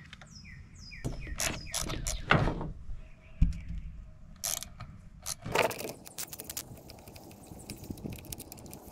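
Small hand ratchet clicking as bolts are backed out. There are scattered clicks and a knock in the first half, then rapid, continuous ratcheting from about halfway in.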